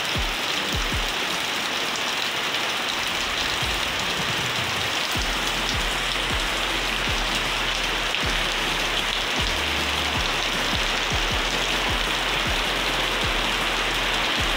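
Heavy rain pouring down steadily, a dense even hiss of drops on waterlogged ground and puddles.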